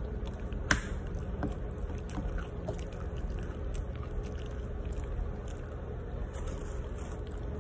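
A person eating, biting and chewing food, with a sharp click under a second in and a few fainter ticks over a steady low background hum.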